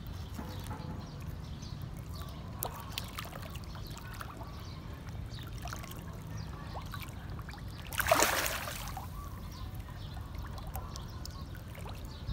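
Water splashing and slurping as a tightly packed school of fish thrashes at the surface, competing for food, with many small splashes and one louder splash about eight seconds in.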